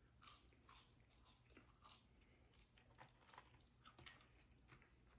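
A person chewing McDonald's fries, faint soft crunchy chews about two or three a second.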